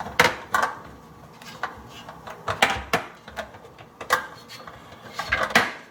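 Plastic dishwasher filter parts clicking and knocking as they are handled, turned and latched into place in the sump: a string of separate sharp clicks, with a quick cluster near the end.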